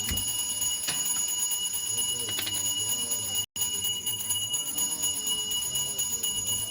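A steady high-pitched whine with a few light clicks, and a brief complete cutout about three and a half seconds in.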